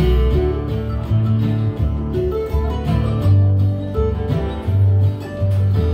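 Live bluegrass band playing: acoustic guitar, fiddle, mandolin, dobro and bass guitar, with a prominent moving bass line under plucked string notes.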